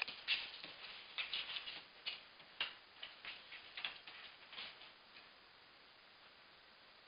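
A cat playing on a hard floor: a quick, irregular run of light clicks and taps from its paws and a small object it bats about, stopping about five seconds in.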